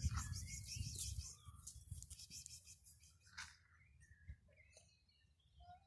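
Faint small bird chirps, with a burst of rustling noise over the first two seconds.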